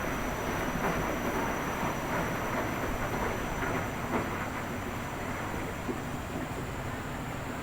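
Washing machine running: a steady churning machine noise with faint, irregular knocks and a thin high whine over it.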